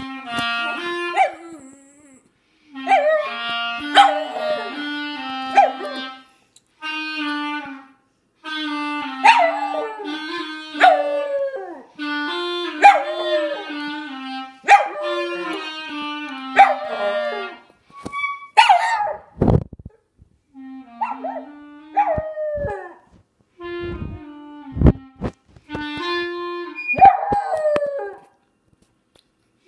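A clarinet plays phrases of steady held notes while a small dog howls along over it in rising and falling wails. There are short breaks between the phrases, and a few dull knocks fall in a pause about two-thirds of the way through.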